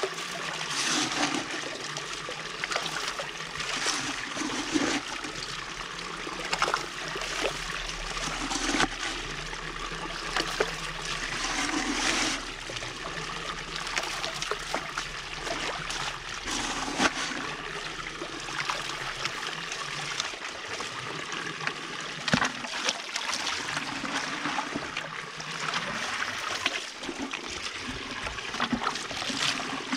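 Water pouring from a PVC pipe into a homemade hydrocyclone concentrator, swirling round the bowl and draining through its centre in a steady rush. Irregular splashes and knocks run through it as gravel is fed into the inflow by hand and from a bucket.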